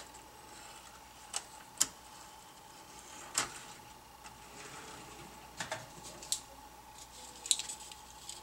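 Irregular light clicks and taps from model railroad cars being handled and set onto the track by hand, with a few louder clicks spread through.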